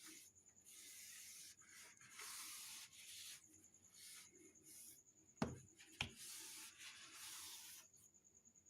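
Dry cloth wiping the inside of a fridge: a run of faint rubbing strokes, with two sharp knocks about five and six seconds in.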